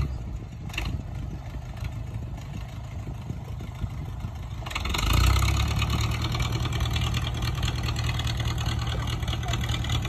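Diesel tractor engine running, fairly quiet at first, then revving up under load about five seconds in as the tractor shoves a pile of dirt with its front blade, and staying at higher power after that.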